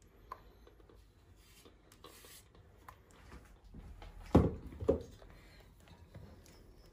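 Silicone spatula quietly scraping a thick cream cheese mixture off a stainless steel bowl and folding it into soft whipped cream. About four and a half seconds in come two louder short knocks, close together.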